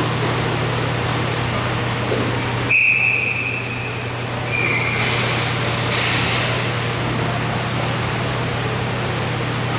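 Steady hum and noise of an indoor roller hockey rink during play, with a referee's whistle blown about three seconds in and a shorter, weaker whistle about two seconds later.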